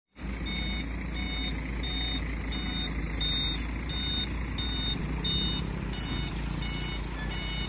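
Hino 500 truck's reversing alarm beeping as it backs up, short high beeps about three every two seconds, over the low steady running of its diesel engine.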